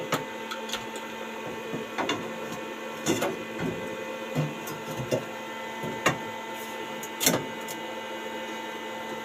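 Arc welding on a steel shelf frame: a steady crackle and sizzle from the arc over the welding machine's hum, with a few louder cracks.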